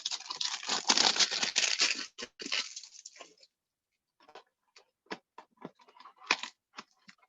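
Cardboard trading-card hanger box and its packaging being torn open: a dense rip and crinkle for about the first two seconds, then scattered short rustles and clicks as the packaging and cards are handled.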